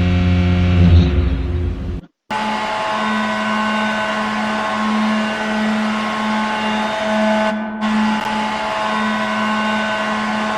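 Hockey goal horns. A deep, loud horn note cuts off about two seconds in. After a brief silent gap, a higher goal horn blasts one long steady note.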